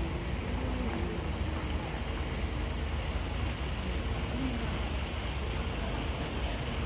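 Intercity bus's diesel engine running steadily under load as it climbs a rough dirt incline, a deep steady rumble under an even hiss.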